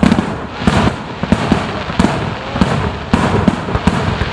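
Fireworks display: aerial shells bursting in quick succession, about three loud booms a second, with crackling between them.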